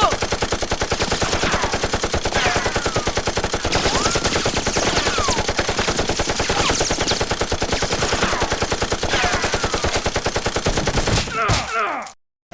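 Rapid automatic gunfire: a long, unbroken run of evenly spaced shots that stops shortly before the end.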